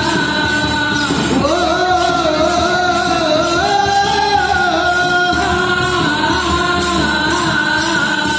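Kamsale performance: the dancers' bronze hand cymbals clash in a steady rhythm under group singing that holds long notes.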